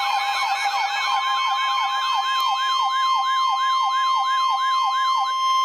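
NOAA Weather Radio warning alarm: a steady 1050 Hz tone signalling a warning broadcast, with an electronic siren-like alert of rapidly repeating falling sweeps over it. The sweeps slow to about three a second about two seconds in and stop near the end, while the steady tone holds.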